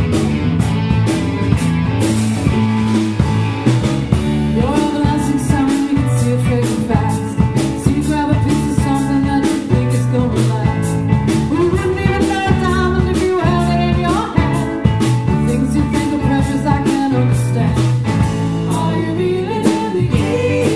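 Yacht rock band music: drum kit keeping a steady beat under bass, guitar and keyboards, with a lead vocal singing over it.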